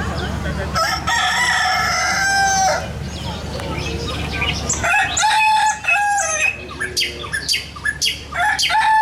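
Rooster crowing twice, each a long pitched call, with short clucks and chirps between the crows.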